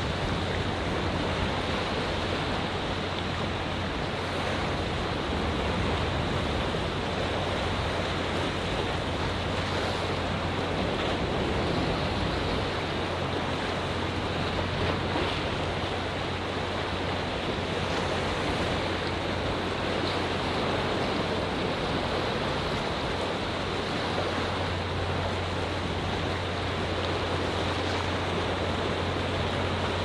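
Atlantic Ocean waves washing among coastal rocks, a continuous rushing surf with no single break standing out.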